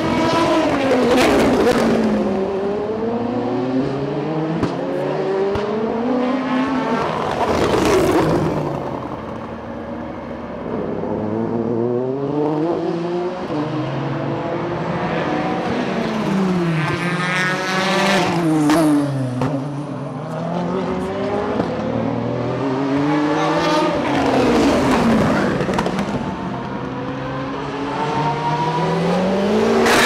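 A string of endurance race cars (prototypes and GT cars) pass at speed one after another. Their engines climb in pitch through a series of upshifts, and each note drops sharply as the car goes by. The loudest pass-bys come about a second in, near 8 s, near 18 s and at the end, the last being a Porsche 911 RSR.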